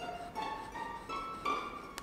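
Background music: a melody of plucked string notes climbing in pitch, with one sharp click near the end.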